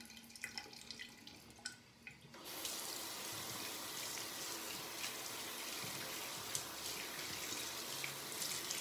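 Bathroom sink tap turned on about two and a half seconds in and running steadily, after a few faint drips and clicks.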